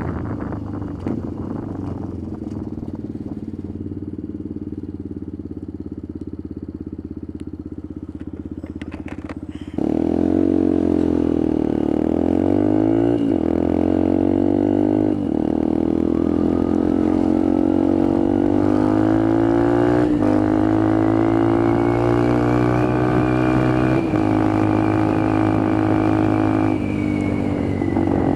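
Benelli TNT 125's single-cylinder four-stroke engine under way, heard from the rider's helmet. It runs at low, fairly steady revs for about ten seconds, then gets louder and pulls hard, the revs climbing and dropping back with three or four upshifts before settling into a steady run.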